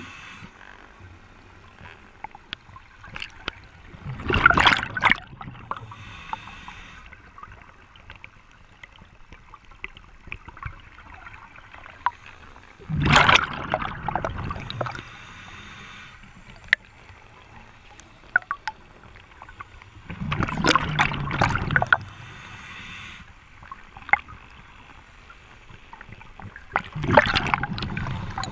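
Scuba diver breathing through a regulator underwater: four loud rushes of exhaled bubbles, spaced several seconds apart, each followed by a quieter hiss from the regulator, with faint clicks in between.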